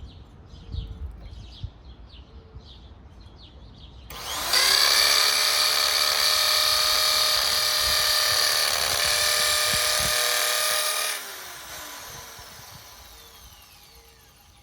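Hammer drill with a masonry bit boring into brick: it spins up about four seconds in, runs steadily under load for about seven seconds, then is released and winds down with falling pitch. Birds chirp before it starts.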